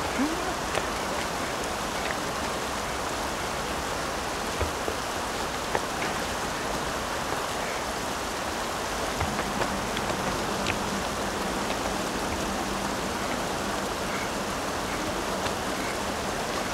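Steady rushing of river water, an even hiss with no break. A few faint taps come through it, and a faint low hum joins about halfway through.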